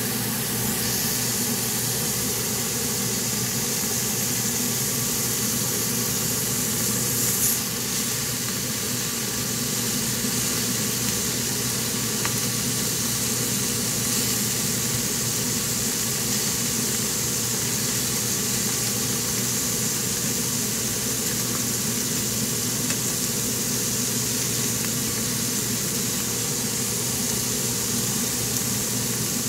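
Beef, pine mushrooms and garlic sizzling steadily in a frying pan over a steady low hum.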